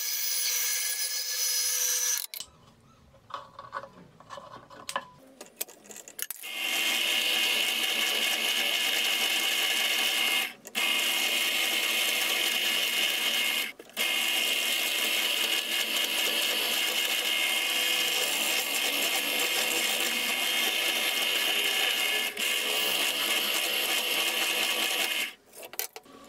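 A band saw cutting briefly, then a few seconds of quiet handling, then a drill press running steadily while drilling through the wooden and micarta handle scales clamped to the knife's tang, with two short breaks.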